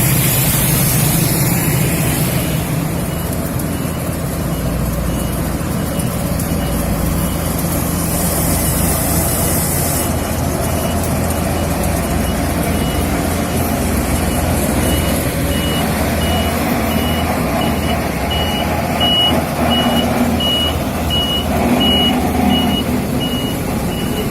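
Heavy road-works machinery engines running steadily, with a reversing alarm beeping about once a second from a few seconds in, the beeps growing louder near the end as the vehicle backs closer.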